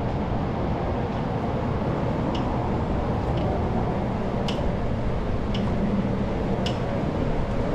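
Toughbuilt C700 metal sawhorses clicking faintly about once a second as they take a man's weight through push-ups, over a steady low background rumble.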